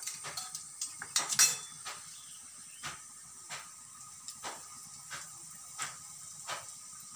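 Stainless-steel kitchenware clinking lightly: about a dozen scattered short clicks, with a quick cluster of them about a second and a half in.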